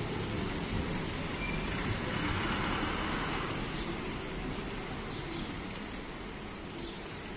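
Steady, continuous rain falling, an even hiss of water that swells slightly about two to three seconds in.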